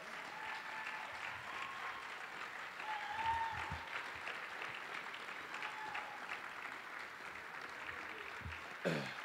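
Audience applauding, with scattered cheers and calls over the clapping and a brief louder sound near the end.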